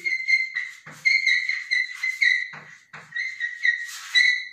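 Chalk squeaking on a blackboard as a word is written: a high, steady squeal in several stretches with short breaks between them. A few sharp taps of the chalk against the board come in between.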